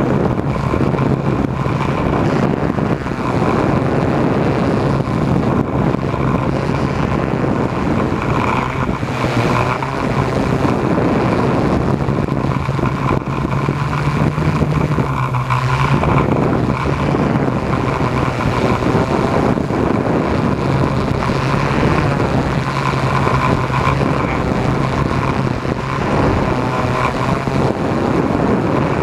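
Drone's electric motors and propellers buzzing steadily, heard from the camera on board. The pitch rises a little about halfway through, then briefly drops away before settling again.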